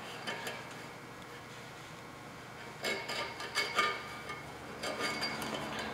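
Metal split ring of the knuckle seal set clicking and clinking against the steel knuckle ball of a Toyota solid front axle as it is worked into place by hand. Quiet at first, then a scattering of clicks from about halfway.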